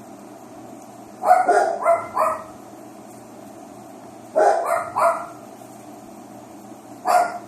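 Dog barking in short bursts: three barks, then three more, then a single bark.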